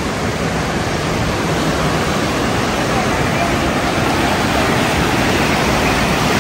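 River water pouring through the open gates of a weir and churning into white water below it: a steady rushing noise, growing slightly louder near the end.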